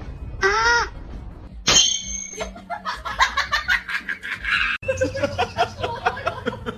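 People laughing in quick repeated bursts, with a sharp high-pitched squeal about two seconds in and an abrupt break near five seconds, after which the laughter and chatter go on.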